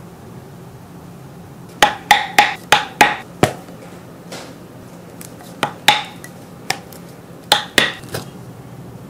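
Sharp taps of a striker on a metal leatherworking tool driven into a leather watch strap, each with a brief metallic ring. A quick run of six taps comes about two seconds in, then after a pause more taps come in twos and threes.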